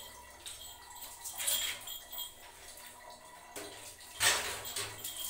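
Water sloshing and splashing as a plastic mug scoops from a steel bucket to pour over a cat being bathed, with a small splash about a second and a half in and a louder one about four seconds in.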